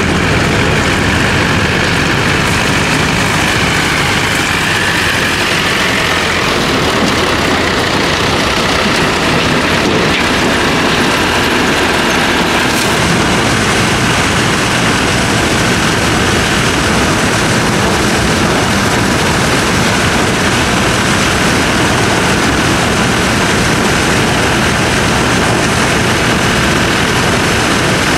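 John Deere rice combine harvester running steadily under load, its engine and threshing machinery making a loud, continuous mechanical noise, with a faint whine that wavers in pitch during the first several seconds.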